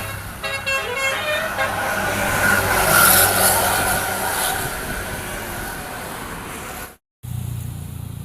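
A bus's telolet multi-tone musical horn plays a quick run of short notes, followed by a swell of loud noise about two to four seconds in. After a short break near the end, a low engine hum runs steadily.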